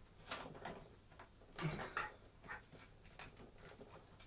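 Faint handling noises as a glued-down IDE cable is worked loose inside a Power Mac G4 tower's metal chassis: a few soft scrapes and knocks, most of them in the first two seconds, then only light ticks.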